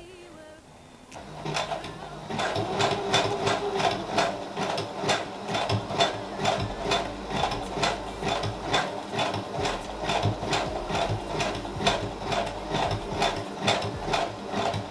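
Sewing machine stitching slowly and steadily, about two to three stitches a second, its needle piercing doubled hair wefts; it starts about a second in.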